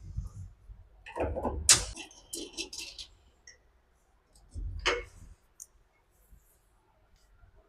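Metal clinks and knocks of nut, bolt and spanner being handled while bolting a crimped cable lug in place: a cluster of sharp clicks about a second in with a brief metallic ring, and another knock near five seconds.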